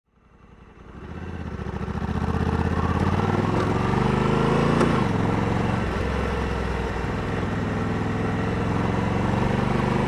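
Honda Africa Twin's 1084 cc parallel-twin engine pulling under way, fading in over the first two seconds. The revs climb until about five seconds in, then drop sharply as the DCT gearbox shifts up, and the engine runs on steadily.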